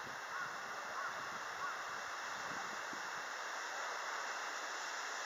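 Steady outdoor background noise, an even hiss of the open city air, with three faint short chirps in the first two seconds.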